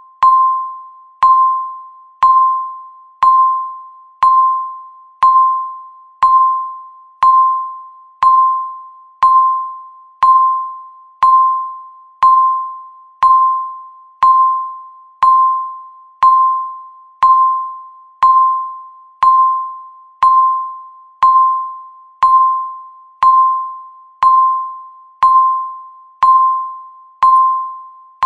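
Countdown timer beeping once every second: a single mid-pitched electronic tone each time, starting sharply and fading away before the next, evenly repeated.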